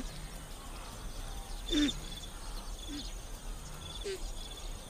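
Faint open-grassland ambience with a steady hiss. Over it come a few short, low animal calls, each falling slightly in pitch, spaced about a second apart, with brief high chirps.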